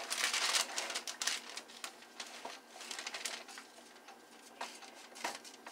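Small rolling pin rolling out dough over a floured paper-covered counter: irregular scraping and paper rustling, strongest in the first second.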